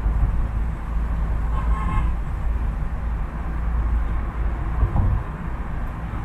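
Steady low rumble of city traffic and tyres on a wet road, with a short car horn toot about a second and a half in.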